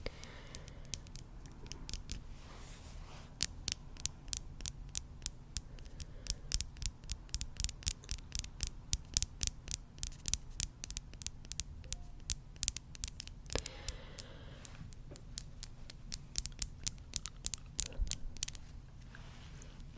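Close-miked ASMR trigger sounds made by hand at the microphone: a long run of crisp clicks and scratches, several a second, with a brief soft hiss about fourteen seconds in.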